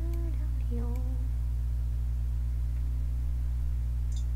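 A steady low hum runs throughout, with a person briefly humming a couple of notes in the first second.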